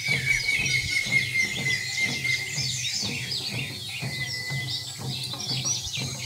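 Background music mixed with busy bird chirping: many quick high chirps over a steady low pulse, with one held high tone through the first few seconds.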